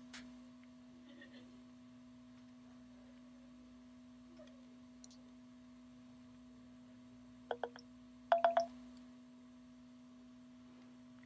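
A faint, steady electrical hum holds one low pitch throughout. A few light clicks come about seven and a half seconds in, and a quick cluster of louder clicks about a second later.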